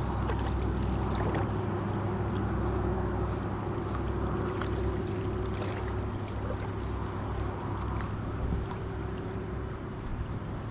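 A baitcasting reel being cranked steadily as a spinnerbait is retrieved, over a constant low rumble.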